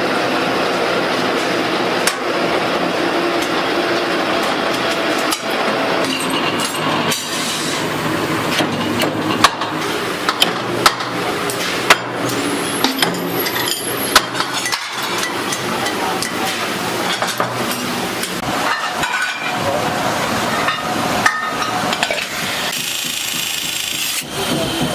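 Factory machinery running with a steady noise, with sharp metal knocks and blows from about six seconds in, several of them loud.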